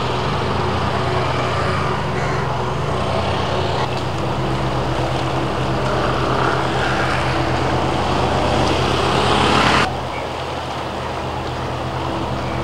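Steady engine hum of nearby road traffic over a broad rushing noise. The rushing drops away abruptly about ten seconds in.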